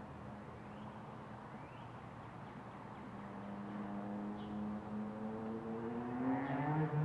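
A passing motor vehicle's engine hum, growing louder and rising in pitch over the last few seconds, with a few faint, short high chirps above it.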